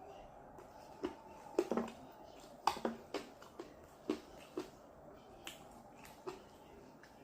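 Close-up eating sounds while chewing chicken wings: a dozen or so sharp, irregular wet mouth clicks and smacks, the loudest between about one and a half and three seconds in.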